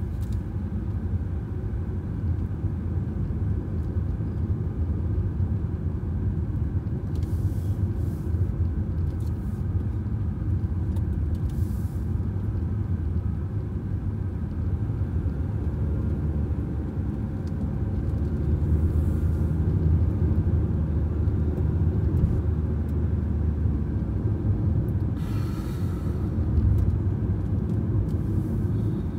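Car being driven, heard from inside the cabin: a steady low rumble from the road and engine, swelling slightly at times.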